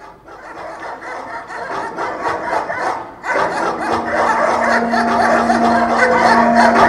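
Audience applause swelling from the first second, with music coming in about three seconds in and a held low note beneath the clapping.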